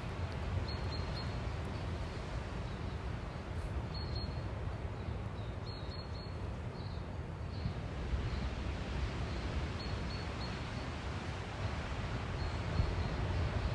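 Outdoor ambience: a steady rush of noise, heaviest in the low end, with a few faint, short high-pitched chirps scattered through it.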